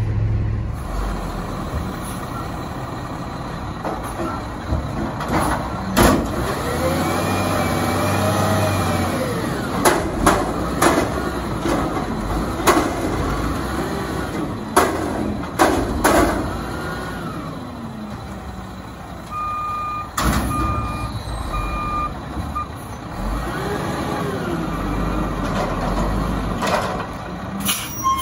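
GMC WX64 garbage truck's engine running and revving up and down several times, with sharp bangs and clanks throughout. Four short evenly spaced beeps sound about two-thirds of the way through.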